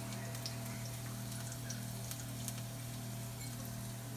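Oil sizzling faintly in a wok on a gas burner, with scattered light ticks over a steady low hum.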